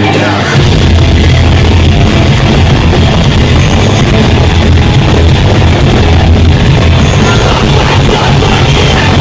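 Live rock band playing loud, heavy rock music.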